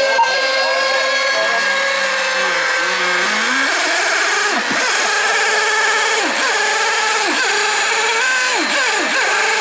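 Several small-engine RC racing boats running flat out, their high whines overlapping. After a few seconds the pitches start dipping and rising again and again, as boats pass and turn.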